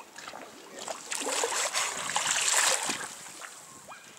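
Water splashing and rushing in a pool, swelling to a loud hiss for about two seconds from about a second in.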